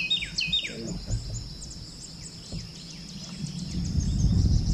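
A songbird calling: a quick series of falling chirps in the first second, then a few more, over a steady high drone of insects. A low rushing noise builds toward the end.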